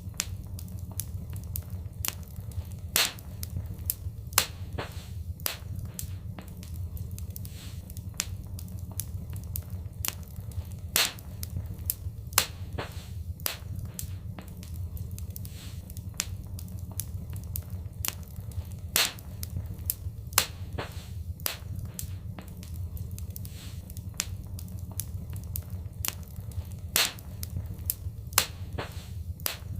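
Fireplace fire crackling, with irregular sharp pops every fraction of a second, a handful of them much louder, over a low steady rumble.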